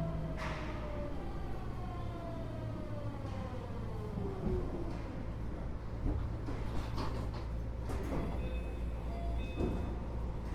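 Keio 8000 series electric train's Hitachi GTO-VVVF inverter whining, the whine sliding down in pitch as the train slows and dying out about halfway, over the steady running rumble of the car. A few clicks and short high beeps come near the end.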